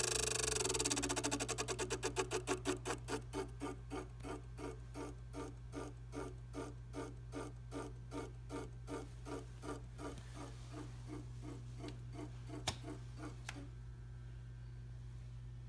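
Tacx Neo Smart trainer spinning down with a rhythmic clicking pulse that slows steadily as the flywheel loses speed. The pulsing dies away with one sharp click near the end, and a steady low hum carries on underneath. It is the unwanted clicking noise this trainer is making.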